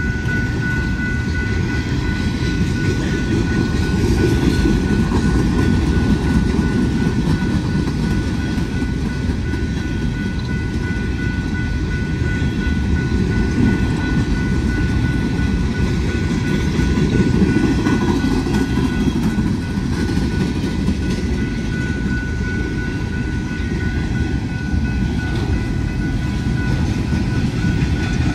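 Empty coal cars of a long freight train rolling past, a steady rumble and rattle of wheels on the rails, with steady high ringing tones running through it.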